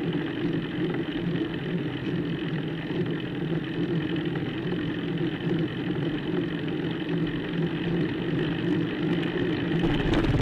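Steady ride noise of a bicycle climbing slowly, picked up by a bike-mounted camera: an even, unchanging hum with a rushing haze over it.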